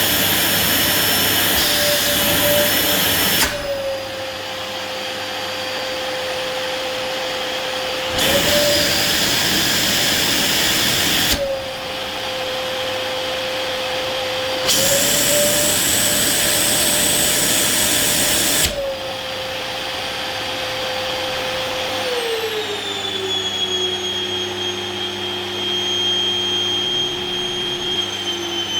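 LG 1600 W canister vacuum cleaner running. Its rushing airflow switches several times between loud and muffled, with a slight shift in its motor whine each time. Near the end the motor whine glides down in pitch and settles lower.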